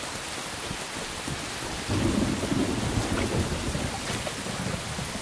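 Heavy rain falling steadily, with a low rumble of thunder that swells about two seconds in and fades near the end.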